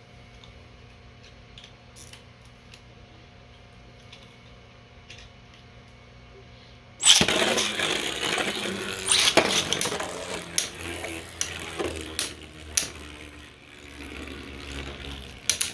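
A faint steady hum with a few light clicks, then, about seven seconds in, the sudden loud start of a battle between two 3D-printed Beyblade spinning tops. The tops whir and scrape around the stadium, with repeated sharp hits as they clash.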